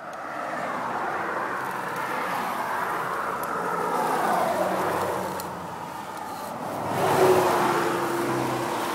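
Ice screw being cranked by hand into hard ice: a continuous grinding of the teeth cutting in, growing louder about seven seconds in.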